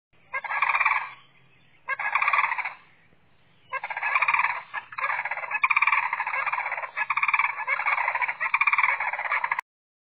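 White stork clattering its bill: a rapid rattle in three bouts, two short and then one long, which cuts off abruptly near the end.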